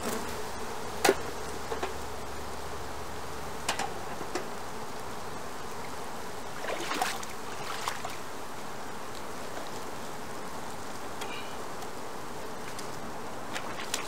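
Honeybees buzzing over an open hive, a steady hum. A few short clicks and knocks sound over it, the loudest about a second in.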